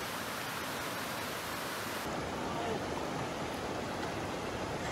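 Steady rush of a fast mountain creek tumbling over rocks.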